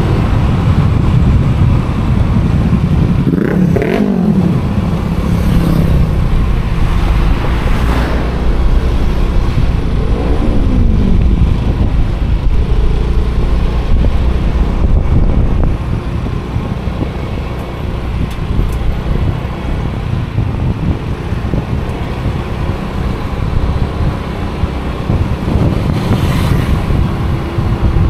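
Motor vehicle engine running in road traffic over a heavy low rumble, with an engine note that rises and falls twice, about four seconds in and again about ten seconds in.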